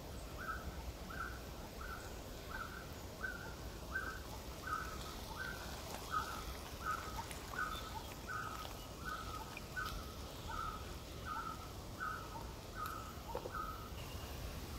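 A bird calling one short, mid-pitched note over and over, evenly about one and a half times a second, stopping near the end, over a faint steady hiss of open forest.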